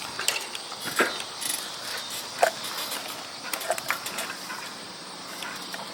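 Bicycle clicking and rattling as it is handled and set off on, with scattered sharp ticks over a faint steady hiss and two brief squeaks.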